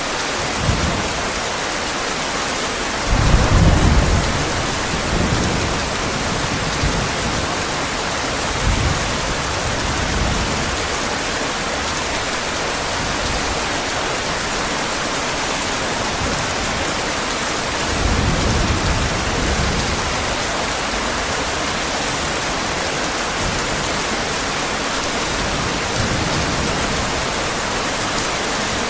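Heavy rain falling steadily, with low rolls of thunder rumbling under it, the loudest about three seconds in and another around eighteen seconds in.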